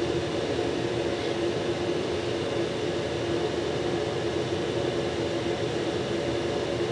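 Steady mechanical hum with a constant low tone, like a fan running.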